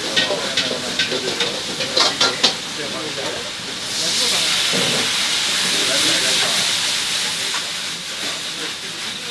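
Stir-frying in a commercial kitchen: a few metal clanks of utensils on the pan, then from about four seconds in a loud sizzling hiss of food going into hot oil, fading after a few seconds.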